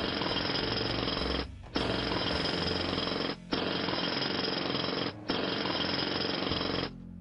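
Loud, dense mechanical rattling in four bursts of nearly two seconds each, with short breaks between them, while the handle of a hand-pump whipped cream maker is pumped.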